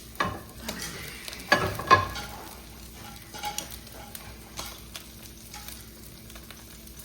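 Pancake batter frying in hot oil in a skillet, sizzling and crackling steadily. A few sharp knocks of utensil on pan come in the first two seconds, the loudest about two seconds in.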